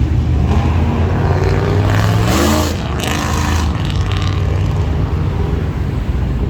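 A car's loud exhaust rumbling low, revving up with a rising pitch about two seconds in, then easing back to a lower, steadier run.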